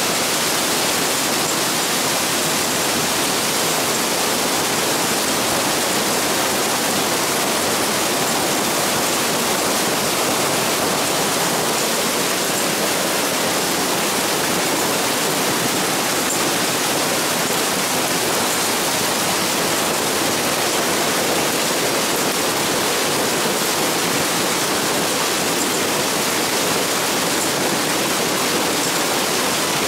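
Hail and heavy rain pouring down in a thunderstorm onto standing water: a dense, steady hiss.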